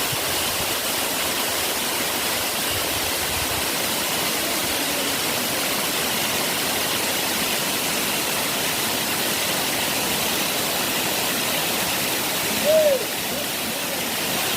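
Waterfall's steady rushing water. Near the end there is one short call that rises and falls, louder than the water.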